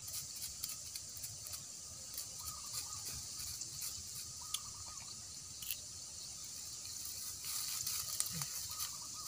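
Dry leaf litter crackling and rustling in small irregular bursts as a person sitting on it shifts about, louder near the end as he starts to get up, over a steady high hiss.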